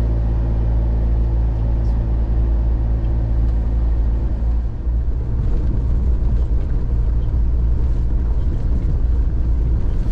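Road and engine noise heard from inside the cab of a moving 4x4 pickup truck: a steady low rumble.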